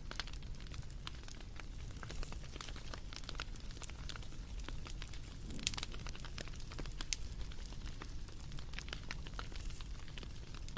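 Bonfire of burning wood crackling: irregular sharp pops and snaps over a low steady rumble, with a few louder pops scattered through.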